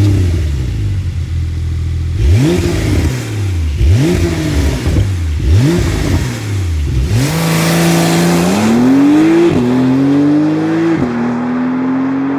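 2020 Porsche 911 Carrera S twin-turbo flat-six through its sport exhaust in Sport mode. It flares loudly and settles to a steady idle, is blipped three times in quick succession about two seconds in, then is revved up and held at raised rpm, dropping and holding again a couple of times.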